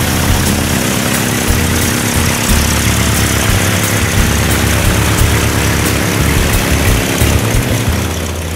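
Piper PA-22-160 Tri-Pacer's 160 hp four-cylinder engine and propeller running at low taxi power as the plane taxis past. The sound fades near the end.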